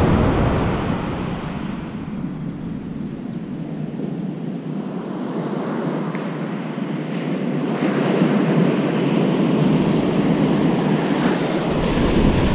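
Ocean surf breaking and washing up the beach, with wind buffeting the microphone. The surf grows louder about two-thirds of the way through.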